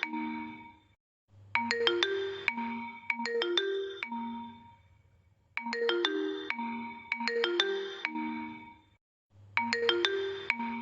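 Vivo phone message notification tone: a short phrase of quick, bright mallet-like notes, played over and over with a brief pause between repeats, starting three times in these few seconds.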